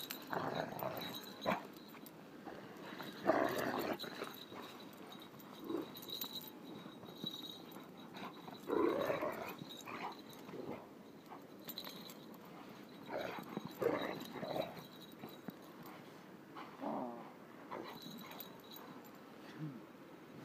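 A dog's growling barks in short bursts every few seconds, worked up during rough play.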